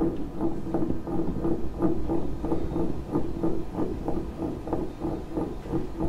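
Wooden Zen Egg rocking and rolling on a tabletop: a hollow, rumbling knock that repeats about three times a second as it sways.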